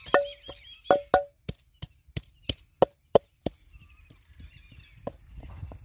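Wooden pestle pounding green chillies, garlic, ginger and onion into a paste in an earthenware kundi mortar: a quick run of sharp knocks, about three a second, some with a short ringing note. The pounding stops about three and a half seconds in, leaving birds chirping and one last knock near the end.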